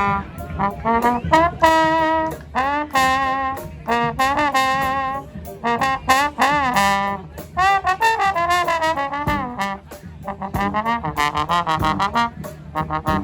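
Street brass band playing: a lead horn line with bending, sliding notes over the band and drums.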